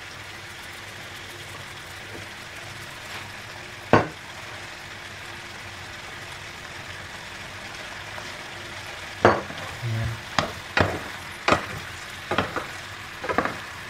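Vegetables sizzling steadily in a frying pan, with a single knock about four seconds in. From about nine seconds in, a wooden spoon stirs them, knocking and scraping against the pan at irregular intervals.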